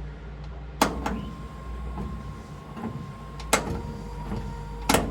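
Electric windscreen wiper motor running with a thin steady whine, the wipers working. Sharp switch clicks come about a second in, past three seconds (where a second, lower tone joins the whine) and near the end.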